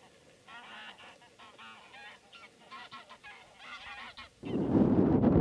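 A flock of wild geese calling, many short overlapping honks. About four and a half seconds in, loud wind buffeting the microphone starts and covers them.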